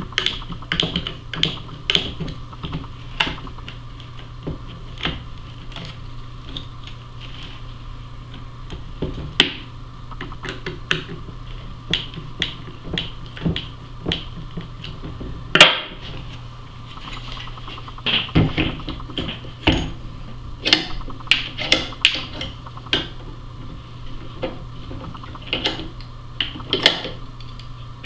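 Irregular clicks and knocks of a hand screwdriver working screws through a wooden block on a belt sander, with the tool and sander knocking against the bench as they are handled, the loudest knock about halfway through and a busier run of knocks a little later. A steady low hum runs underneath.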